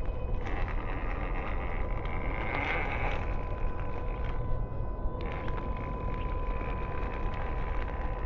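Electric motor and gearbox of a WPL C44KM RC truck whining as it crawls over gravel, with small ticks of stones under the tyres. The whine rises about two and a half seconds in, drops out briefly about four and a half seconds in, then comes back.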